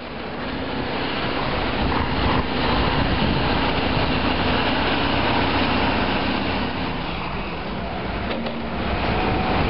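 Engines of heavy construction machinery, excavators and a wheel loader, running steadily on a job site, fading in over the first second.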